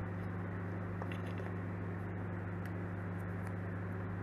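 Steady low electrical hum in the background, with a few faint soft clicks as paper pieces and a glue bottle are handled.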